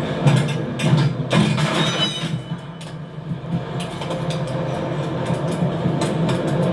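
Animated-film sound effects of an overhead rail conveyor carrying doors: a steady low mechanical hum with irregular metallic clacks and rattles, busiest in the first two seconds and again near the end.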